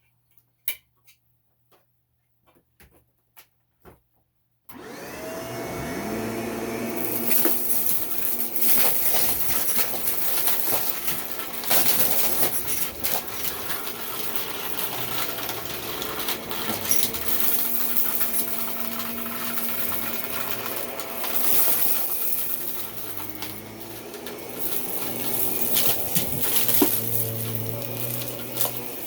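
A vacuum cleaner switched on about five seconds in, after a few faint clicks. Its motor spins up with a rising whine, then runs steadily.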